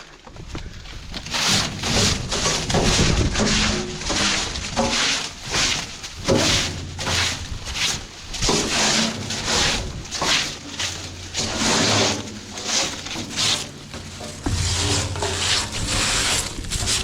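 Repeated noisy scraping strokes, roughly one a second and uneven, from leftover corn and debris being cleared out by hand.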